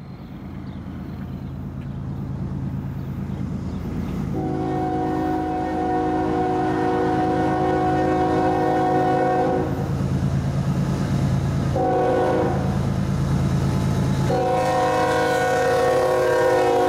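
Norfolk Southern GE ES44AC diesel locomotive leading a freight train, its engine rumble growing louder as it approaches and passes. The chime horn of several notes sounds a long blast, then a short one about 12 seconds in, then another long blast as the locomotive draws level.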